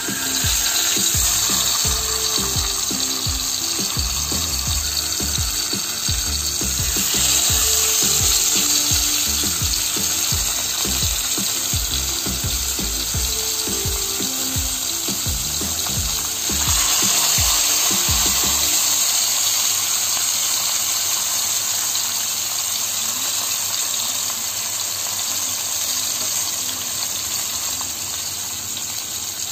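Marinated mullet frying in hot groundnut oil in a frying pan, a steady loud sizzle as the fish pieces are laid in one by one. Background music with a beat plays over it and stops about two-thirds of the way through, leaving the sizzle alone.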